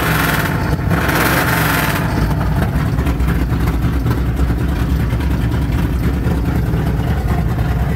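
Straight-piped pickup truck engine idling as it warms up, a steady deep exhaust rumble. A rushing noise sits over it for the first couple of seconds.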